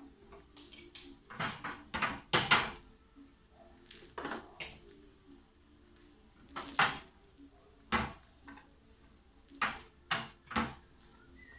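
Ceramic mugs and sublimation mug clamps knocking and clattering together as the clamps are fitted onto the mugs. The knocks come irregularly, with the loudest cluster about two seconds in.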